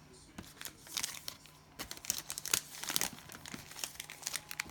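Cellophane trading-card pack wrappers crinkling as they are handled: a run of irregular crackles, busiest in the middle.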